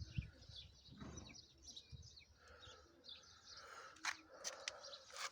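Faint chirping of small birds, with a couple of sharp clicks near the end.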